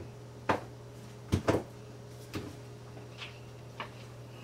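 Kitchen items being handled and set down on a counter: a few light knocks and clicks, the loudest a close pair about a second and a half in, over a steady low hum.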